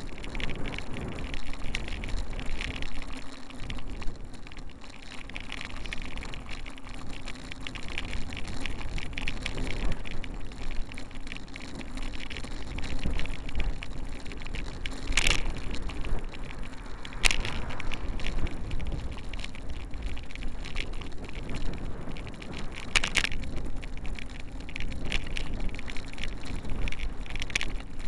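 Car driving along a street, heard from inside through a small dash-mounted camera's microphone: steady engine and road noise with a low hum, and three sharp clicks or knocks, two close together around the middle and one later.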